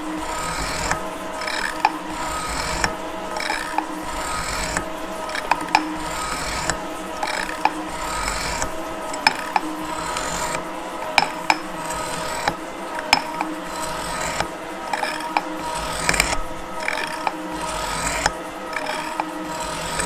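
Gould & Eberhardt metal shaper taking roughing cuts across an A36 steel plate under power feed, the ram working back and forth with a sharp tick about once a second on each stroke over a steady machine run.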